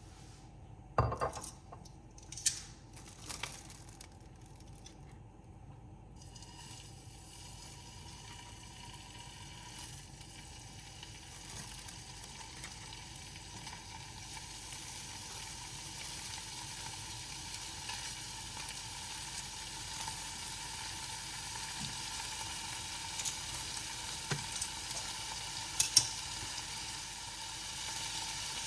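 Food frying in a pan, the sizzle building steadily louder as it goes on. A few sharp clicks and knocks of utensils or cookware come in the first few seconds and again near the end.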